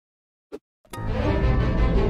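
A short blip about half a second in, then music with a heavy bass line starts about a second in and carries on steadily.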